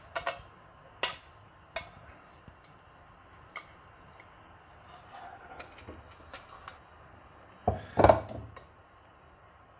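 Metal tongs clinking and scraping against a nonstick pan as spaghetti is lifted out and served onto a ceramic plate, with a few sharp clinks in the first couple of seconds. A louder clatter of cookware comes about eight seconds in.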